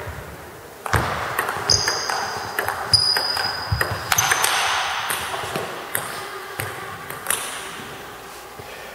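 Table tennis ball struck by rubber bats and bouncing on the table during a rally: a run of sharp clicks, irregularly spaced about half a second to a second apart, echoing in a large sports hall. Brief high shoe squeaks on the hall floor come about two and three to four seconds in.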